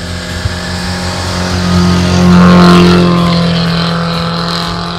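Off-road 4x4 engine revving under load as the vehicle ploughs through deep snow, building to its loudest about halfway through and then easing off.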